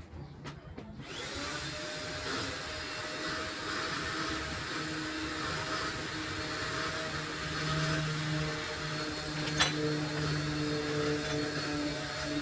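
A small electric motor starts about a second in, its pitch rising as it spins up, then runs steadily with a whirring hum. A single sharp click comes near the end.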